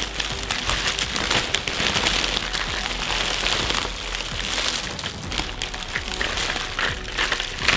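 Dozens of wrapped fun-size candy bars spilling out of a large plastic bag onto a table: a steady rain of small taps and wrapper crinkles as the bag is shaken empty.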